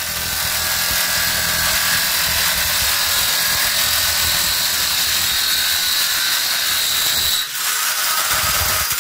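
DeWalt electric drill running steadily under load as its bit drills a hole through the flattened end of a metal tube, with a high whine from the cutting. The sound dips briefly near the end, then the drill runs on.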